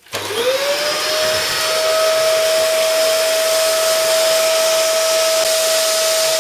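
Upright vacuum cleaner switched on: the motor spins up with a rising whine over about a second, then runs at a steady whine over a loud rush of air.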